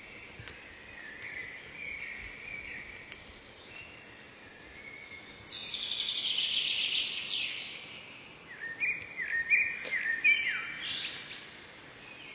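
Woodland birdsong over a faint steady background hiss: several songbirds calling, one giving a loud buzzy trill about halfway through, then a quick run of short falling notes near the end.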